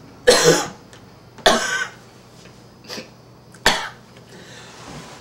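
A young man coughing: two hard coughs in the first two seconds, then two shorter ones.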